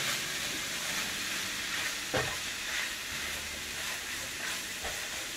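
Chicken, onion and capsicum filling frying in a nonstick pan with a steady sizzle, as a silicone spatula stirs flour through it with scraping strokes. There is a brief knock about two seconds in.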